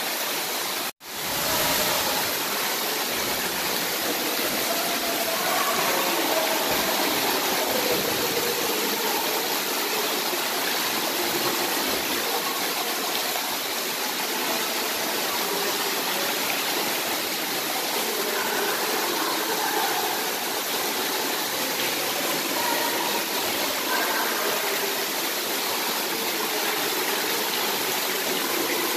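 Steady rush of running and splashing water from an indoor pool's water slides and play features, cut off for an instant about a second in.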